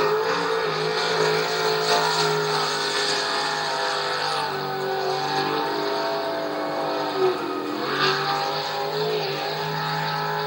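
A motor engine running and revving, its pitch wavering up and down, heard through a television's speaker.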